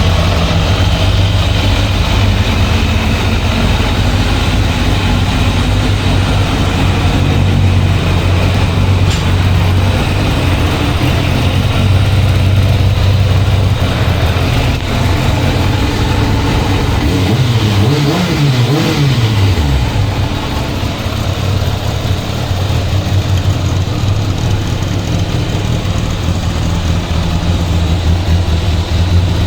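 Kawasaki ZZR1200 motorcycle's inline-four engine idling steadily, its pitch briefly rising and falling about two-thirds of the way through.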